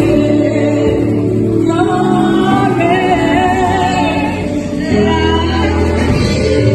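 Church choir singing a gospel hymn over a sustained keyboard or organ-like accompaniment.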